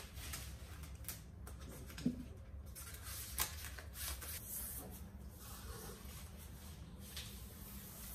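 Blue painter's tape being pressed and smoothed into place by hand: faint rubbing and rustling, with a few light clicks and taps.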